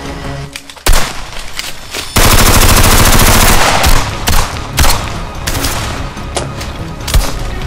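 Gunfire in an action film: a single shot about a second in, then a long, very rapid burst of automatic fire, then several separate single shots.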